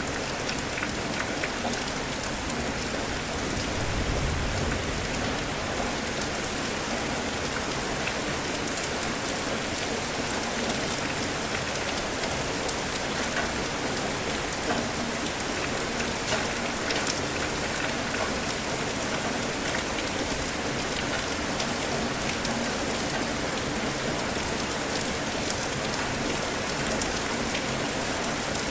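Steady rain falling, an even hiss with many small drop ticks, and a brief low rumble swelling about four seconds in.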